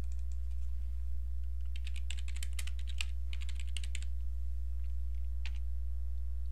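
Computer keyboard typing: a quick run of keystrokes lasting about two seconds, with a few faint key presses before it and one more near the end, over a steady low hum.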